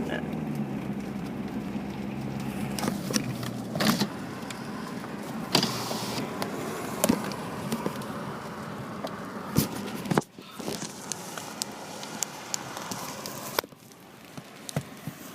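Car interior noise while driving, a steady rush with scattered sharp clicks and knocks.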